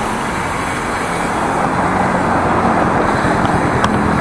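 Steady rush of wind and road noise while riding a bicycle along a city street, with traffic noise mixed in, getting louder about a second in.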